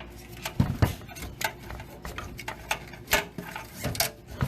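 Irregular clicks and light knocks, about ten of them, from hands working parts inside a PC case while a zip tie is fitted around a loose hard-drive cable.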